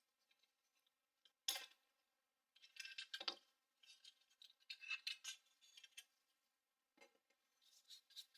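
Quiet, scattered handling sounds of small computer parts being worked on and cleaned: short scrapes, brushing and light clicks, coming in several separate bursts with a sharper click about a second and a half in.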